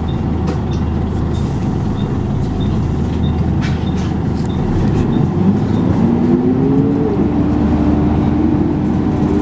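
Volvo B10BLE bus running, heard from inside the saloon: a steady engine rumble with a light regular tick about every half second. About five seconds in, a whine rises in pitch and holds as the bus pulls under power, the bus's 'hoover' sound.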